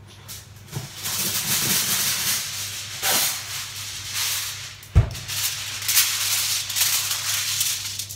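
Aluminium foil being handled, rustling and crinkling in two long stretches, with a single sharp knock about five seconds in.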